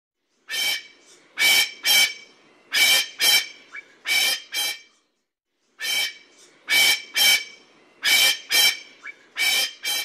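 Male common pheasant calling: two bouts of short, harsh calls in quick succession, seven or eight calls each, with a pause of about a second between the bouts.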